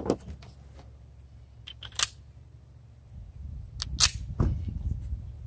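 A handful of short, sharp metallic clicks from a Walther PPS M2 pistol being handled. The loudest comes about four seconds in.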